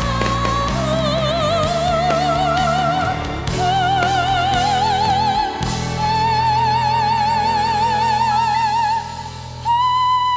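A woman singing with an operatic sound over a backing track. She holds long notes with wide vibrato that climb step by step, then goes to a steady high note near the end.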